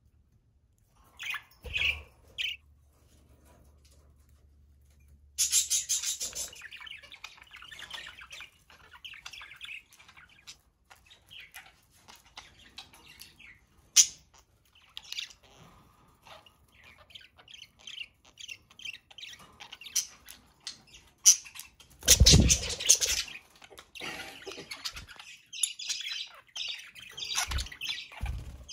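Budgerigars chirping and chattering in short, quick calls, with scattered sharp clicks and a loud, brief burst of noise about two-thirds of the way through.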